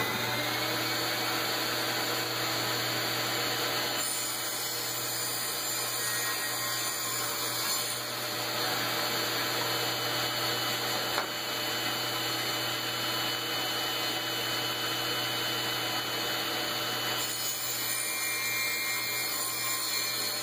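A shop vac and a power saw running steadily together while MDF is cut, with a low steady hum under a broad even noise. The sound shifts slightly about four seconds in and again near the end.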